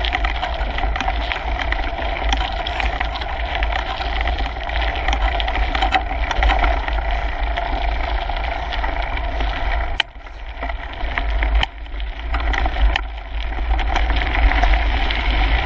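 Kona Coiler mountain bike rolling fast over a gravel trail, heard from a handlebar-mounted GoPro: tyre crunch and frame rattle with many small clicks and knocks over a low wind rumble on the microphone. The noise drops away briefly about ten seconds in, then picks up again.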